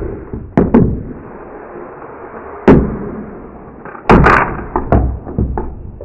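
Two hard plastic Brawlasaurs dinosaur action figures, tails wound up, spinning and clashing on a tabletop. A run of sharp plastic knocks, the loudest about two and a half and four seconds in, with a steady rasp between them.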